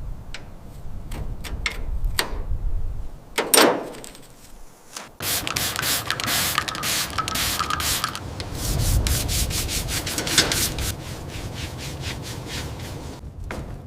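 Sanding or rubbing strokes, quick and continuous, starting about five seconds in after a few scattered clicks and knocks.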